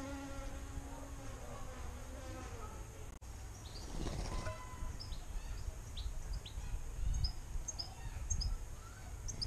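Small garden birds chirping at a birdbath: a string of short, high, falling chirps, roughly two a second, starting about four seconds in. Before that a faint droning hum, with low rumbling underneath throughout.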